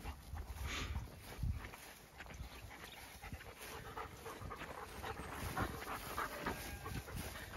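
A dog panting close by, faint and irregular.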